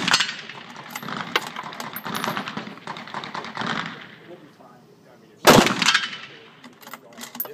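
Gunshots: a loud shot just before the start fades out, fainter cracks follow over the next few seconds, and one loud gunshot rings out about five and a half seconds in.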